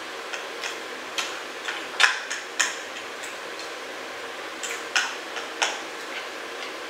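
Close-miked eating sounds: a person chewing food, with about a dozen short, sharp mouth smacks and clicks at irregular intervals. The loudest come about two seconds in and again around five seconds in, over a faint steady hum.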